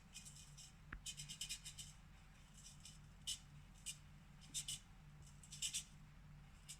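Faint, light scrapes and ticks of a spoon against a bowl while sugar is added to egg yolks: a quick run of scratches about a second in, then scattered single and paired ticks, over a low steady hum.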